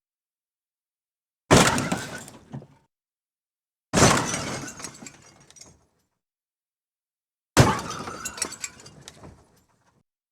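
Three separate car crash sound effects, each a sudden smash with shattering glass that dies away over one to two seconds, with dead silence between them.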